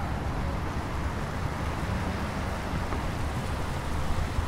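Wind buffeting the microphone, an uneven low rumble, over steady street traffic noise.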